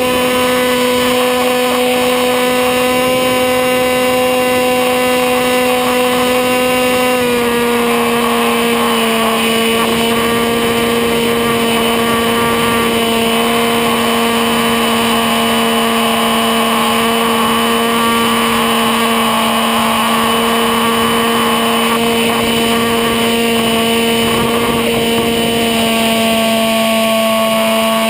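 HobbyKing Bixler's electric motor and APC 6x4E propeller running as a steady whine, heard onboard the flying plane, with rushing air noise. The pitch steps down slightly about seven seconds in as the throttle is eased back.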